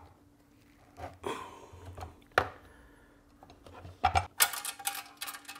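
Metal parts and a hand tool knocking and clinking against a wooden workbench as a band saw and its steel stand bracket are handled and fitted. There are a few separate knocks, then a quick run of clicks and clatter near the end.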